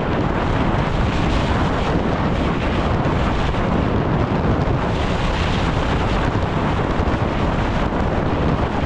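Steady, loud wind rushing over a helmet-mounted camera's microphone as a downhill mountain bike descends a dry dirt trail at race speed, mixed with the rumble of the tyres on loose dirt and gravel.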